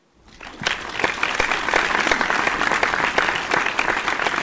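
A crowd applauding: the clapping swells up over the first second, then goes on steady and loud.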